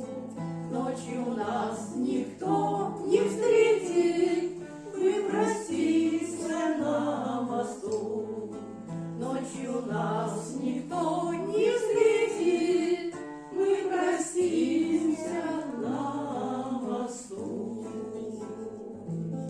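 Voices singing a slow song, with instrumental accompaniment keeping steady bass notes.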